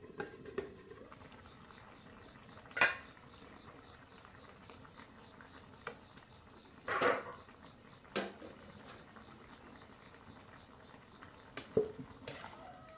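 About five scattered knocks and clinks, like things being picked up and set down, over a quiet background.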